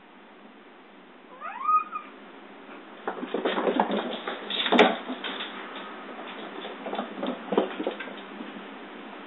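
A sphynx cat gives one rising meow, then a run of quick thumps and scuffs on a wooden floor as it chases a toy, with one sharp knock about halfway through.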